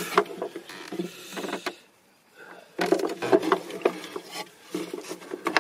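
Hard plastic dashboard trim being handled: irregular clicks, knocks and rubbing, with a short lull about two seconds in before the handling picks up again.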